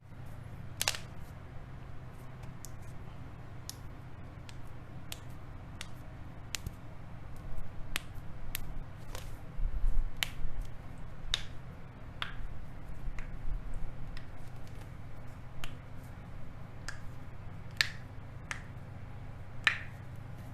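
Joints being cracked by hand: a series of sharp pops and clicks at irregular intervals, about one or two a second, some much louder than others, over a steady low hum.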